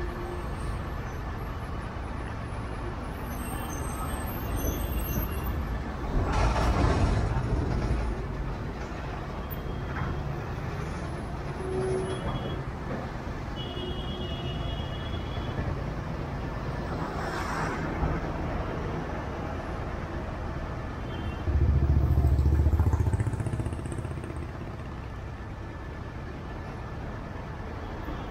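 Traffic standing at a junction: idling truck and motorcycle engines make a steady low rumble. A loud brief hiss comes about seven seconds in, and a louder low engine rumble about twenty-two seconds in, as a heavy vehicle nearby pulls away.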